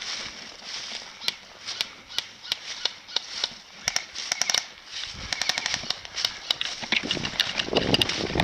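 Airsoft guns firing: scattered single pops and short rapid bursts, with rustling near the end.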